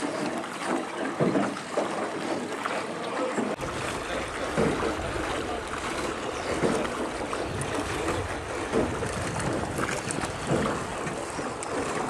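Water sloshing and lapping around a small rowboat as it is rowed along a river, with irregular splashes about once a second. From about three and a half seconds in, wind rumbles on the microphone underneath.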